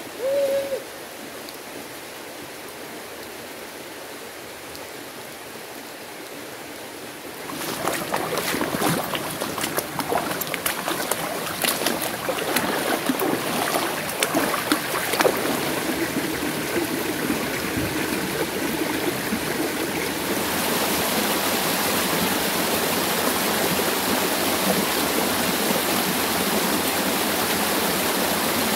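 A shallow mountain stream flowing over rocks, with splashing and sharp watery clicks as a dog wades through it. From about twenty seconds in, the stream turns to a steady, louder rush of running water. There is a brief high-pitched squeak right at the start.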